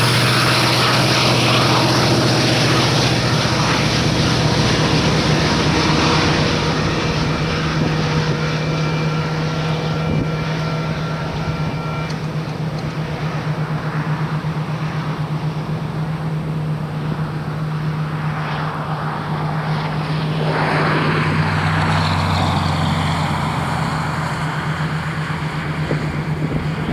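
Union Pacific SD70ACe diesel locomotive, the rear distributed-power unit of a freight train, moving away, its 16-cylinder two-stroke engine a steady pulsing drone, with the hiss of the train's wheels on the rails dying down after a few seconds. A swell of rushing noise comes about twenty seconds in.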